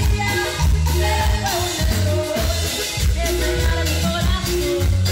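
Live cumbia band playing with a steady beat: electric bass, keyboard, accordion and drums under a woman singing lead into a microphone.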